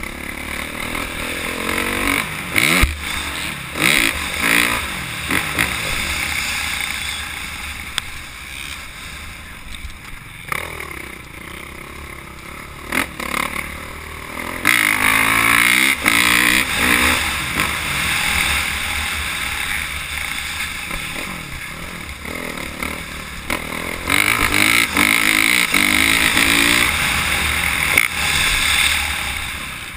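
Dirt bike engine being ridden hard, revving up and down through the gears as it accelerates and backs off, heard close up from the bike. It is loudest and highest-pitched for a few seconds about halfway through and again near the end.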